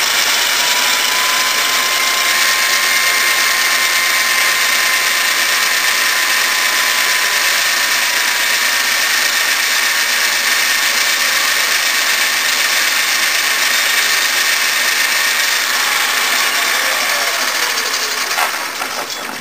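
Homemade electric pocket bike's electric motor and chain drive running with the bike standing still: a whine rises to speed at the start, holds steady over a loud rattling hiss for about fifteen seconds, then winds down near the end, with a couple of clicks as it stops.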